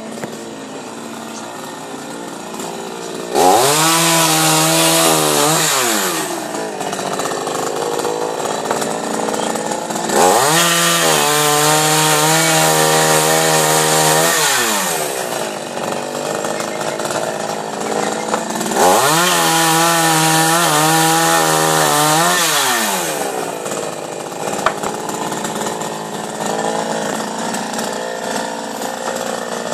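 Chainsaw revved up three times to cut through wooden boards, its pitch rising into a high steady whine for a few seconds each time, then dropping back to idle between cuts.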